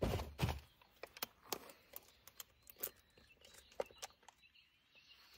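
Handling noise from a running pack and its contents: a couple of low thumps in the first half-second, then scattered light clicks and rustles.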